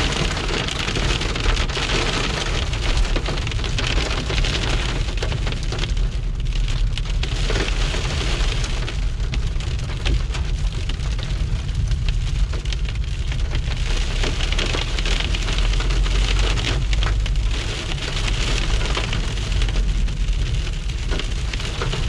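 Small, dry hailstones hitting a car's windshield and roof, heard from inside the moving car as a dense, steady patter of tiny clicks over the low drone of the engine and road.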